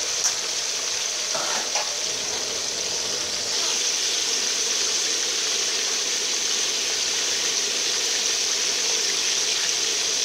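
Whole fish deep-frying in hot oil in a metal wok: a steady sizzle, a little louder from about three and a half seconds in.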